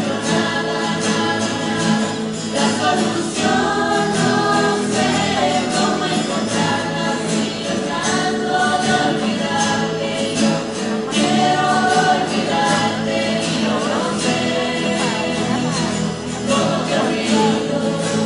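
Live group of singers performing a song together over strummed acoustic guitars.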